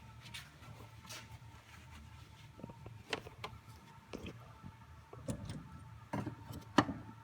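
Scattered light clicks and knocks of handling, several sharper ones in the second half, over a faint steady low hum.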